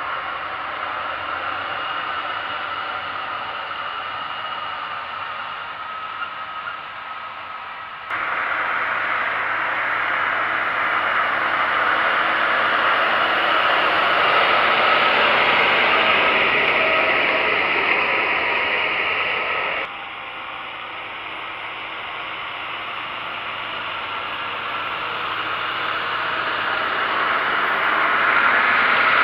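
John Deere 7530 tractor's six-cylinder diesel running steadily under load as it pulls a Gaspardo Aliante seed drill, heard as a hissy mechanical drone. The sound jumps louder suddenly about 8 seconds in, drops suddenly about 20 seconds in, then grows louder toward the end as the tractor comes close.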